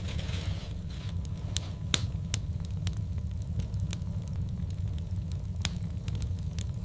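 Wood fire crackling in a fireplace: a steady low rumble of the burning logs with scattered sharp pops and snaps, the loudest about two seconds in and another at about five and a half seconds.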